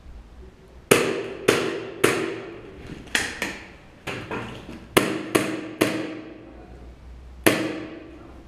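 Airsoft fire: about ten sharp, loud cracks in an irregular string, each with a short ringing tail, coming in ones, pairs and threes over several seconds.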